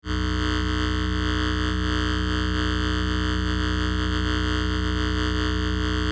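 Steady, buzzing electronic drone made of many fixed tones that never change pitch, starting abruptly and holding level throughout.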